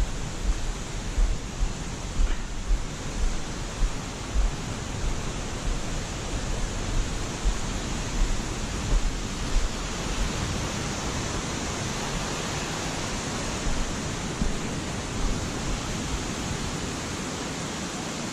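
Steady rush of a brook's waterfall. Through the first half there are low thumps about once a second from footsteps on a leafy slope.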